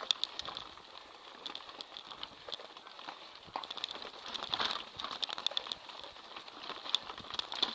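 Mountain bike rattling over a loose, rocky dirt trail, heard from a handlebar-mounted camera: irregular clicks, knocks and crunches of tyres and frame on stones, busiest about four and a half seconds in.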